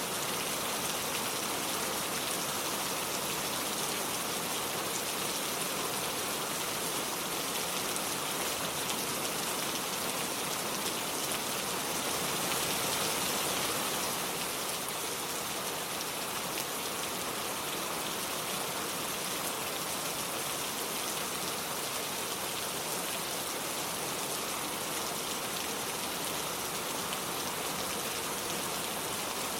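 Steady rain falling and pattering on hard surfaces, swelling slightly about halfway through.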